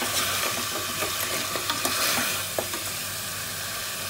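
Beef bones sizzling as they fry in oil in a pressure cooker pot, stirred with a spatula that clicks and scrapes against the pot a few times.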